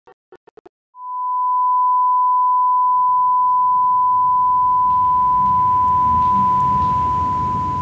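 A single steady high-pitched ringing tone fades in about a second in and holds, over a low muffled rumble that builds up beneath it. It is the ear-ringing effect of a nearby bomb blast, with a muffled explosion underneath.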